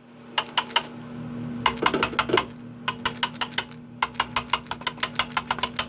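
Quick light taps on a refrigerator compressor's start relay box, in runs of sharp clicks that come about five a second near the end, over a steady hum from the running fan. The tapping is meant to jar loose a suspected faulty start relay; the compressor does not start.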